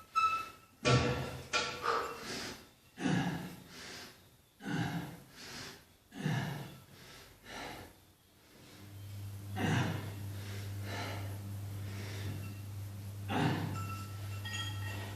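A man breathing hard through a set of weight-training reps: a run of short, forceful exhalations, with background music. A steady low hum starts about nine seconds in.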